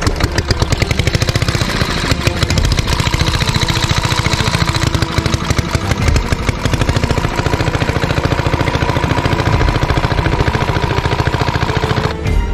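Small stationary engine driving a water pump, running steadily with a rapid, even firing beat as it pumps water out of the pond through a hose. It cuts off near the end.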